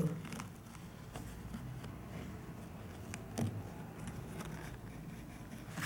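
Faint rustling and a few light ticks of fingers handling and rubbing a football jersey's fabric and embroidered logo, with one louder brief knock about three and a half seconds in.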